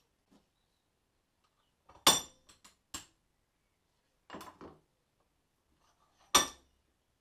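Hammer blows on a hollow punch over the end of a steel inner cable held in a former clamp in a vice, splaying the wire end into a mop-top head ready for a soldered nipple. Two loud, ringing metal strikes, about two seconds in and near the end, with a few lighter clinks after the first and a softer clatter of metal in between.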